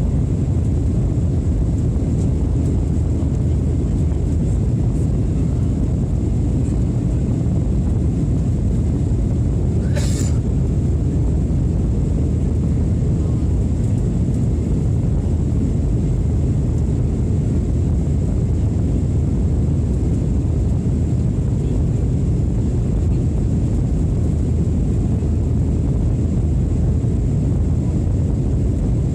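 Steady low roar of a passenger airliner's engines and airflow heard inside the cabin, with a faint steady high whine, and a brief sharp swish about ten seconds in.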